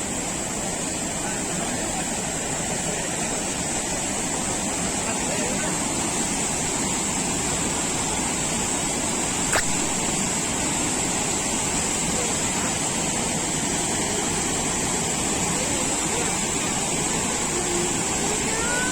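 A waterfall's water falling and splashing onto rock, a steady, full rushing noise that does not change.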